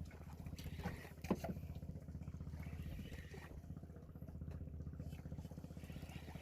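Fishing boat's engine running steadily, a low, even pulsing drone, with one short knock about a second in.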